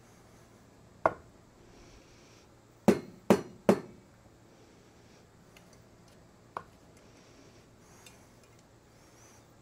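Small parts and tools knocked against a workbench: one sharp knock, then three quick hard knocks less than half a second apart, and later a lighter click.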